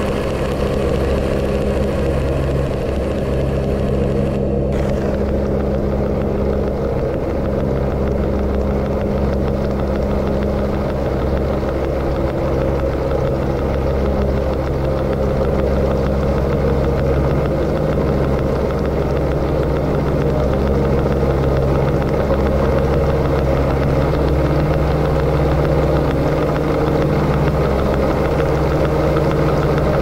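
Experimental noise music: a low, steady drone of several held tones under a layer of noise. The higher hiss cuts out about four and a half seconds in, leaving the low drone.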